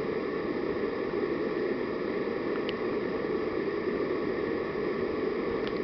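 MAP gas torch burning steadily into a homemade coffee-can furnace, an even rushing hiss, with two faint ticks.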